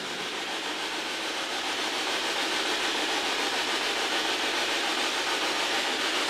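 Steady, even hiss of noise with no distinct events, growing slightly louder over the few seconds.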